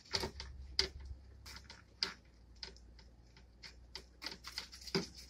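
Plastic spatula scraping and clicking against a baking sheet as it works under the edges of baked quesadillas to loosen them. The clicks are irregular, with the loudest near the start, about a second in, around two seconds and near the end.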